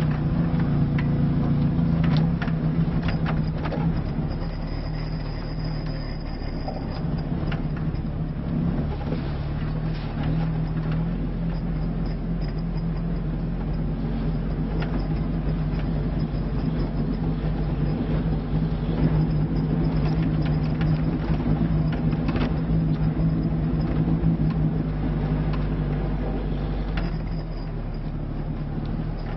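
Lada Niva's four-cylinder engine running steadily, heard from inside the cabin, with scattered knocks and rattles from the body as the car drives over rough ground.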